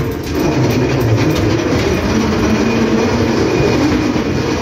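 Ghost train ride car running along its track, a steady loud noise.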